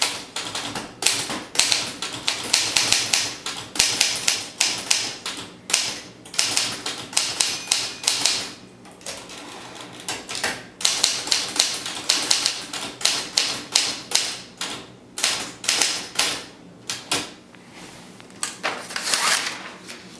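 Olivetti Studio 44 manual typewriter being typed on: quick runs of sharp key and typebar strikes, broken by a couple of short pauses.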